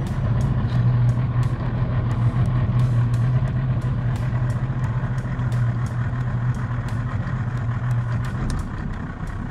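Small boat's outboard motor running steadily under way, easing off about eight seconds in, with scattered sharp clicks over the hum.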